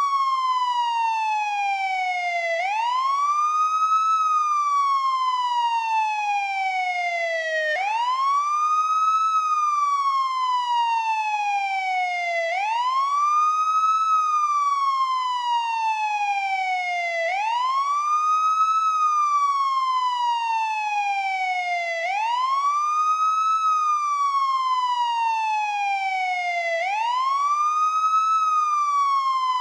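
Police siren sounding its wail tone, which rises quickly and then slides slowly down before jumping back up. The cycle repeats evenly about every five seconds.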